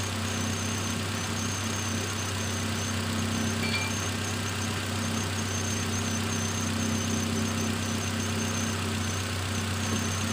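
Nissan X-Trail T31's 2.5-litre four-cylinder petrol engine idling steadily, just fitted with new iridium spark plugs to cure a misfire and shaking at idle. A faint short beep sounds about 4 seconds in.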